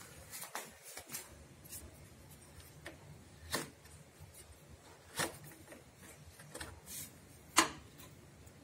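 Metal radiator cap being twisted off the filler neck by hand: a handful of short clicks and scrapes spread over several seconds, the loudest just before the cap comes free.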